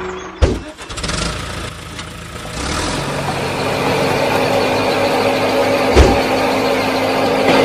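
A motor starting up and running, building from about two and a half seconds in to a steady hum. A sharp thump comes about half a second in, the loudest moment, and another knock about six seconds in.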